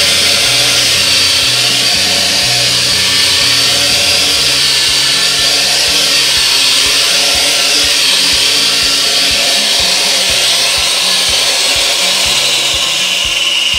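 Elenker 509G quadcopter's four motors and propellers whining while it hovers, the pitch wavering up and down as the throttle is adjusted. Music with a beat runs underneath.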